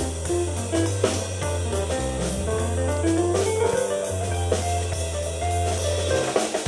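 Live keyboard and drum-kit duo playing an instrumental rock jam. Held keyboard bass notes sit under a keyboard melody that climbs and falls, while the drums and cymbals keep a steady beat.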